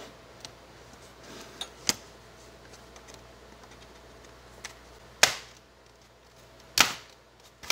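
Plastic retaining clips of a Dell Inspiron 5570's bottom cover snapping loose as a plastic card is slid along the seam to pry the cover off. A few sharp clicks, the loudest two about five and seven seconds in, with fainter ticks before them.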